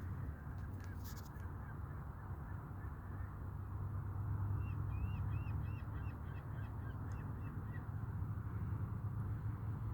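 Birds calling, with many short chirps throughout and a run of about a dozen quick, higher calls around the middle. A steady low rumble runs underneath.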